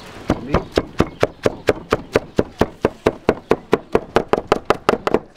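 A large knife chopping roasted whole lamb on a wooden chopping board: fast, even knocks, about four to five a second, as the meat and fat are minced together.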